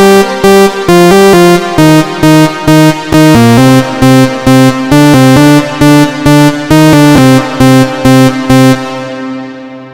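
Synthesizer keyboard music: chords played in short rhythmic stabs over a stepping bass line, ending on one held chord that fades out near the end.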